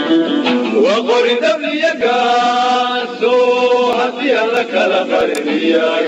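Group of voices singing a chanted song, holding long notes and sliding between them.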